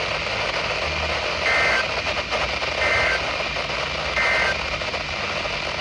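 Emergency Alert System end-of-message code: three short, identical bursts of two-tone data squeal, about 1.4 s apart, over steady weather-radio hiss. It marks the end of the severe thunderstorm warning.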